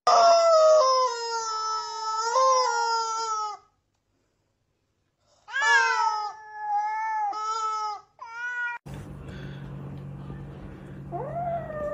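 Rubber squeaky chicken squeezed into long squawks: one held for about three and a half seconds, then after a gap several shorter ones. Near the end a kitten gives a long falling meow over a low hum.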